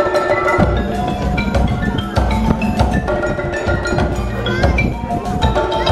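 Percussion ensemble playing live: tuned mallet instruments struck in quick ringing notes over low drum beats.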